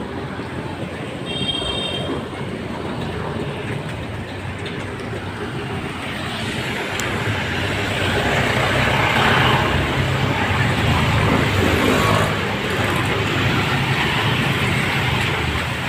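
Street traffic noise: a motor vehicle's engine grows louder as it passes close, loudest about halfway through, with a short high-pitched beep about a second and a half in.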